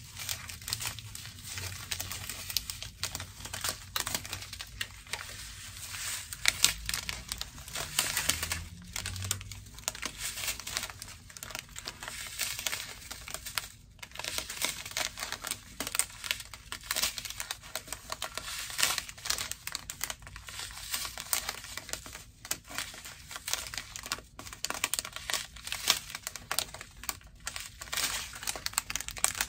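Small plastic bags of diamond painting drills crinkling in irregular crackles as they are handled and flipped through.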